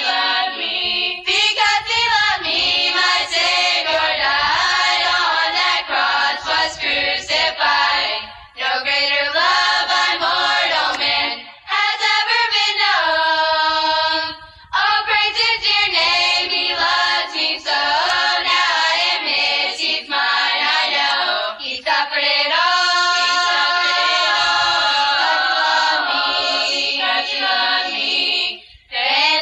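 A choir of girls singing a religious song together, phrase after phrase, with brief breaks between phrases.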